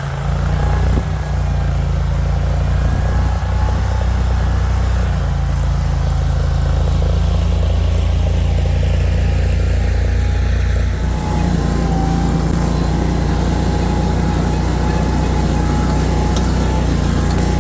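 Mini skid steer's engine running steadily under work. Its note shifts about eleven seconds in, after a brief dip.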